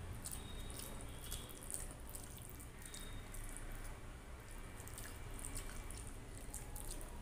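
Wet clicks and squishes of fingers mixing rice with kadhi on a steel plate, a string of small sticky sounds throughout.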